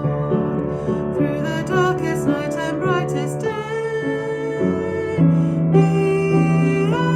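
A song playing: a voice singing a slow melody over piano accompaniment.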